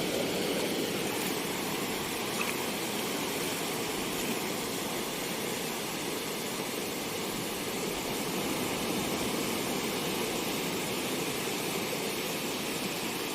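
Steady rushing of sea surf breaking on a rocky shore, an even hiss with no let-up.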